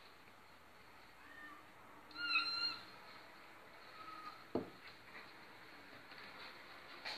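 Maine Coon kitten meowing: one loud, high mew about two seconds in, with fainter short mews just before and after it. Two soft knocks follow, one past the middle and one near the end.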